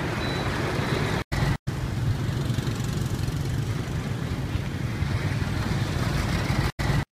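Heavy trucks' diesel engines running, a steady low rumble with road noise. The sound cuts out for an instant twice a little over a second in, and once near the end.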